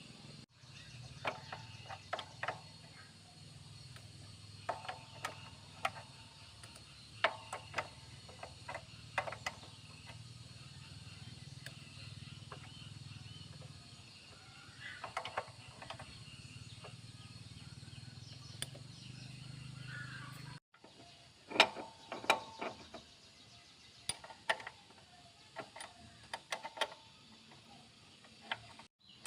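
Scattered light clicks and clinks of metal tools and motorbike parts being handled, over a low steady hum. The hum stops suddenly about two-thirds of the way through, and the clicks go on.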